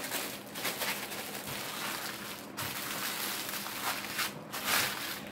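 Clear plastic packaging crinkling as it is handled, in uneven waves with the loudest crinkle near the end.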